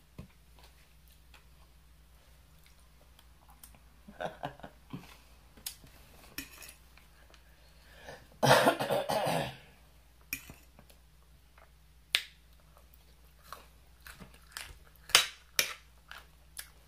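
Close-mic eating sounds: chewing of romaine salad, with a fork clicking against a plate now and then and a loud noisy burst about halfway through.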